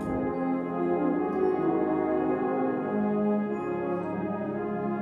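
Brass band playing a hymn arrangement in full, held chords, with a single percussion stroke at the start.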